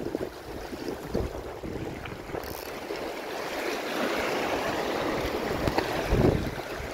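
Small sea waves washing and splashing against shoreline rocks, growing a little louder through the second half, with wind buffeting the microphone in low gusts.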